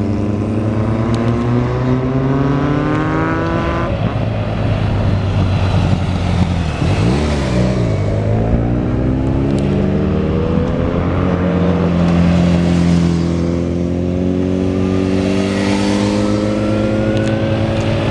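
Motorcycle engines accelerating hard through the gears. A rising engine note breaks off at a gear change about four seconds in, dips and rises again around seven seconds, then climbs steadily near the end as a bike comes on through the bend.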